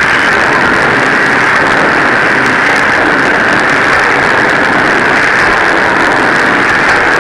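Pneumatic forging hammer running, a loud, steady mechanical noise without distinct separate blows.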